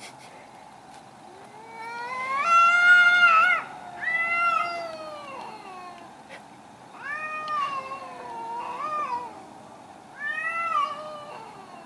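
Domestic cats caterwauling at each other in an angry standoff: a run of long, drawn-out yowls that rise and fall in pitch, the aggressive warning cries that come before a cat fight. The loudest yowl comes about two to four seconds in.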